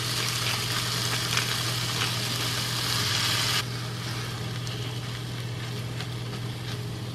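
Ground turkey sizzling in a frying pan with garlic, onion and tomato, broken up and stirred with a wooden spoon. A steady low hum runs underneath. The sizzle drops suddenly in the higher range about halfway through.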